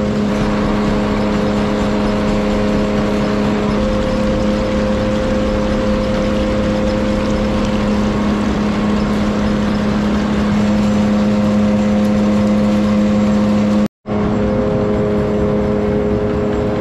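Steady hum of mill-site machinery running, with a shaker table's wash water pouring off its spouts and splashing into buckets. The sound cuts out for an instant near the end.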